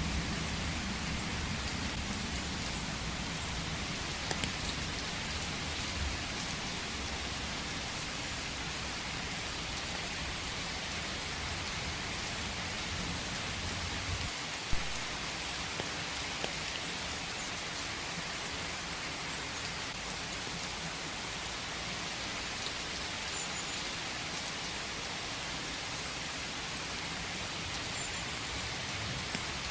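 Steady rain falling in a forest. A low rumble underlies the first half and fades out about halfway through, where a single sharp tap stands out.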